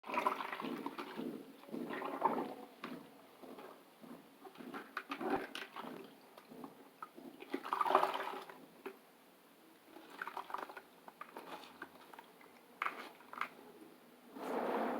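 Wet squelching and splashing of water as a soft squishy toy is washed and squeezed by hand, in uneven bursts every couple of seconds.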